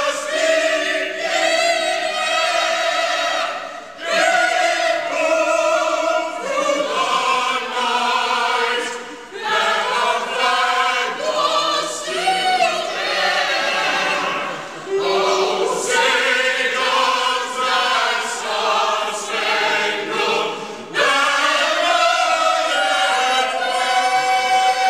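A choir singing in several parts, holding long notes with short breaks between phrases.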